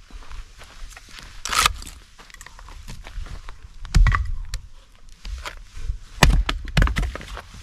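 Axe splitting firewood on a stump chopping block: several sharp wooden chops and thunks. The loudest comes about four seconds in, and two more blows land near the end.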